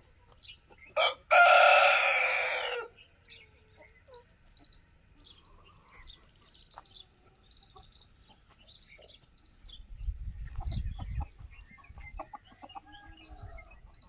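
Aseel rooster crowing once, about a second in: a short first note, then a long drawn-out call. A low rumble follows near the end.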